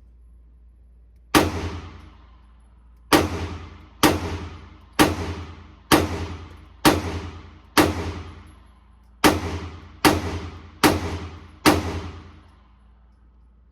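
Eleven handgun shots fired at an indoor range, each a sharp crack followed by a ringing echo that dies away: one shot, a pause, six shots about a second apart, a short break, then four more.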